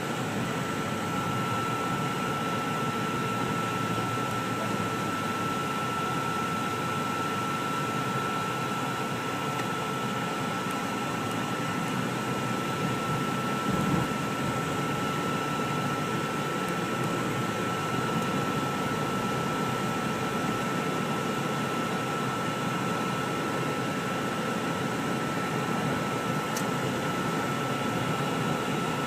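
Steady road and engine noise of a car driving, heard from inside the cabin, with a thin high-pitched whine held at one pitch.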